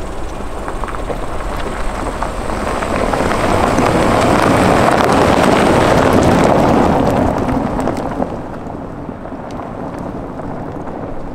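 Rolls-Royce Cullinan driving past on a loose gravel track: tyres crunching over the gravel with scattered clicks of stones, swelling to a peak about halfway through as it passes close, then fading as it moves away.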